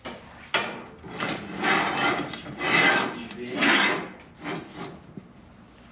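A metal roof-rack load bar scraping as it is slid by hand along the rack's slotted rail, in several rough rasping pushes.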